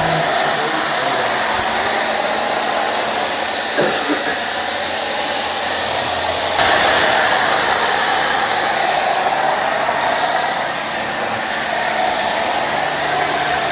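Pressure washer spraying water in a steady, loud hiss against a truck, with a few brief sharper surges of spray.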